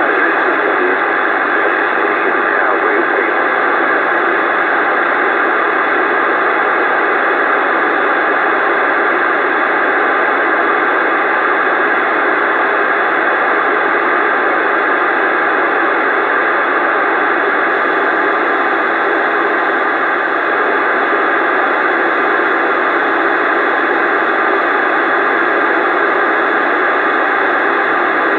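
CB radio receiver static: a loud, steady hiss from the radio's speaker with no one transmitting.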